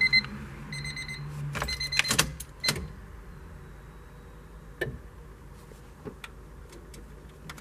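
Rapid electronic beeping from a car's warning chime, in short pulses over a low hum that stops about two seconds in, with a few sharp plastic clicks from the wired-up stereo head unit being handled.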